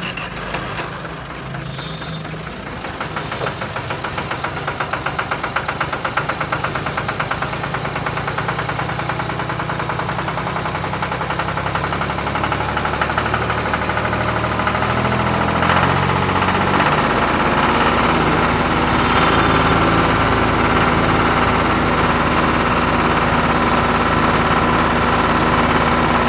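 Battery-powered ride-on toy tractor's drive motor and gearbox running under load with its rear wheel spinning in wet mud: a steady whirring rattle that slowly grows louder.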